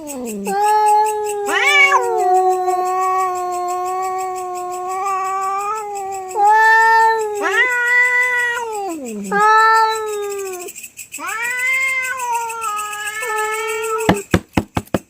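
Cats caterwauling in a territorial fight: long, drawn-out, wavering yowls, with one sharp rising screech about two seconds in. The yowling stops about fourteen seconds in and is followed by a run of quick ticks.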